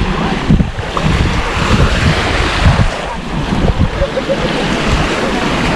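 Sea waves washing onto a sandy beach, with wind buffeting the microphone in a low gusty rumble.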